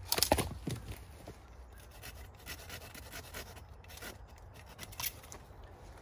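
Dry vines and brush being yanked and torn loose by hand: a burst of crackling and snapping in the first second, then scattered rustling and small snaps, with one sharp snap about five seconds in.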